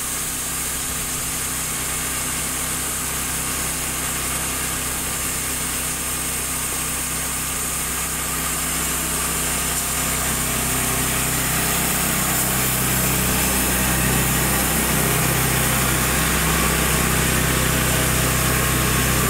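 Band sawmill powered by a Honda GX390 single-cylinder petrol engine, running steadily while its band blade saws lengthwise through a log. The sound grows louder about halfway through.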